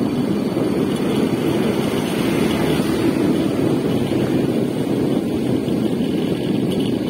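Motorcycle riding downhill at speed: a steady rush of wind on the microphone over the engine and road noise.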